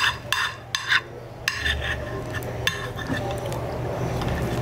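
Spoons clinking and scraping against plates, with a few sharp clinks in the first two seconds.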